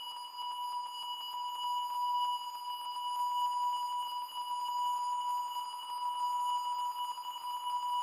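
Steady, high electronic drone: one held pitch with overtones above it, wavering a little in loudness and never breaking.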